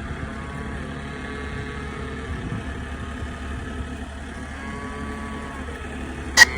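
A vehicle engine running steadily, with faint calves mooing in the background. A single sharp click sounds near the end.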